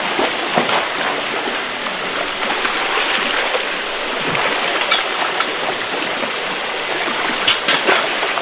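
A hooked fish thrashing at the water's surface, splashing continuously while it is fought in to the bank, with a few sharper splashes near the end.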